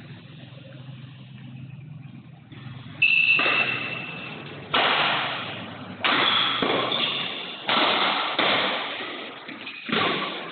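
Badminton rally: rackets striking a shuttlecock, about seven sharp hits roughly a second apart starting about three seconds in, each ringing on in the echo of a large hall. Before the rally there is only a low steady hum.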